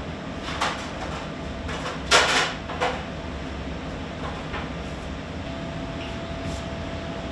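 Steady hum of commercial kitchen equipment, with a few brief handling noises of food wrapping and utensils; the loudest comes about two seconds in, and two shorter ones fall just before and just after it.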